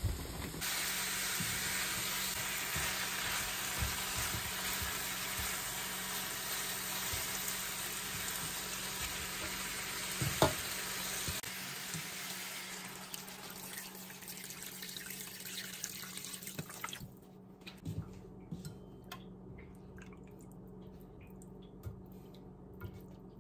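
Water pouring into a hot stainless steel pan of browned chicken drumsticks, with a steady hiss and sizzle. The hiss stops suddenly about 17 seconds in, leaving scattered soft taps of a silicone spatula stirring in the water.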